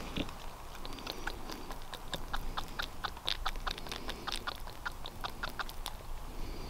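Deer scent lure squirted from a plastic squeeze bottle onto a scrape, the drops hitting dry leaf litter in a run of irregular sharp ticks and crackles, thickest in the middle.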